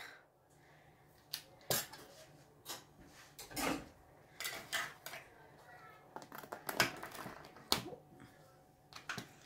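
A knife cutting through pizza crust and scraping on the metal baking tray: a series of scattered short clicks and scrapes.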